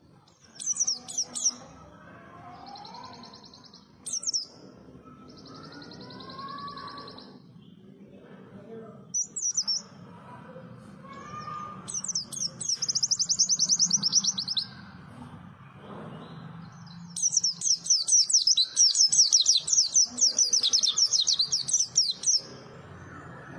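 Pleci (white-eye) singing: a few short high chirps, then two long, rapid twittering trills, one of about two seconds in the middle and a longer one of about five seconds near the end, over a faint low hum.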